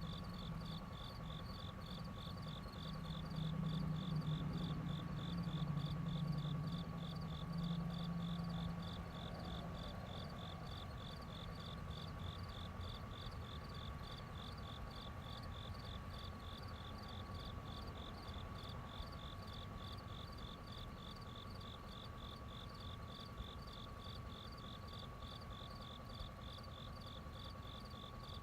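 Outdoor ambience of insects chirping in a fast, even pulse, over a steady high whine. A low whirring hum is loudest in the first few seconds and fades out about nine seconds in.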